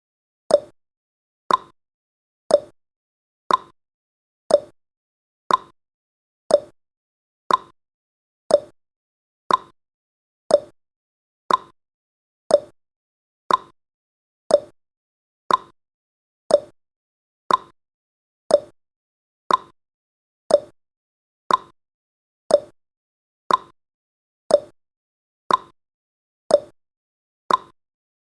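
Clock-style ticking sound effect of a countdown timer: short sharp ticks, one each second, evenly spaced with silence between.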